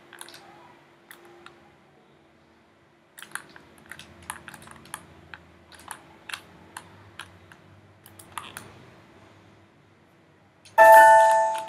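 Irregular clicks of a computer keyboard and mouse, scattered over several seconds, with a faint steady hum underneath. Near the end a much louder sound with several steady tones cuts in and fades within about a second.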